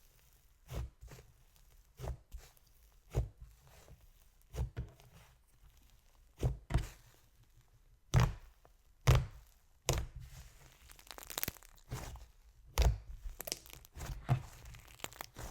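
Thick, fluffy clay-based slime being pressed and poked by hand: a string of short wet pops and clicks, roughly one a second, the loudest a little past halfway. Faint sizzling crackle runs between them.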